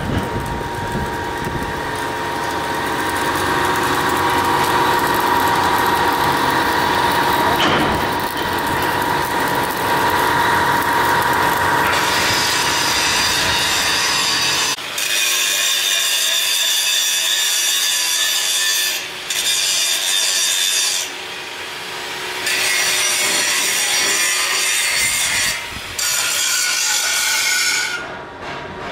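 Workshop machinery running loud and steady, with a rough rasping noise and a constant tone through the first half. From about halfway the sound turns into a higher hiss that stops and starts again several times.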